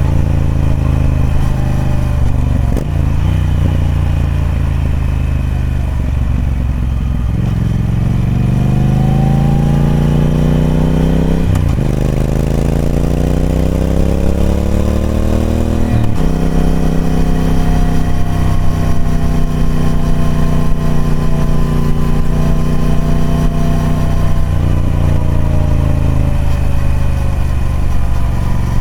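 Triumph Speed Twin 1200's parallel-twin engine through its stock exhaust, pulling hard with the pitch climbing and dropping at three upshifts, about a third of the way in, near halfway and a little past halfway. It then holds a steady cruise and eases off toward the end.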